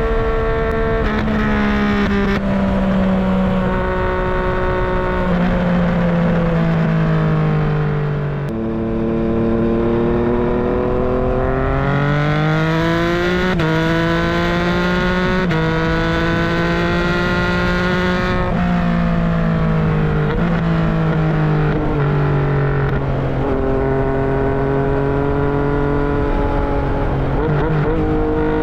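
Yamaha MT-09's three-cylinder engine and exhaust under way, the note rising and falling as the bike speeds up and slows. The pitch jumps abruptly several times as gears change, with a brief drop in loudness about eight seconds in.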